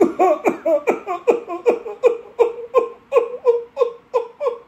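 A paroxysmal bout of whooping-cough (pertussis) coughing: about fifteen short coughs in a rapid run, roughly three a second, one after another without a breath in between, stopping suddenly near the end.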